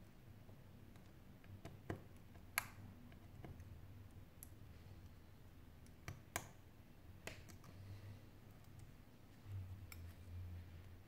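Faint, scattered small clicks, about ten in all and irregularly spaced, as a metal pry tool works at the internal parts of an opened Sony Xperia Z5 Compact smartphone. The sharpest clicks come a couple of seconds in and again past the middle. A low hum and soft handling bumps lie underneath.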